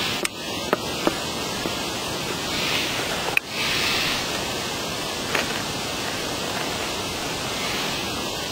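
Steady rushing hiss of outdoor background noise, with a few sharp clicks near the start, in the middle and about five seconds in.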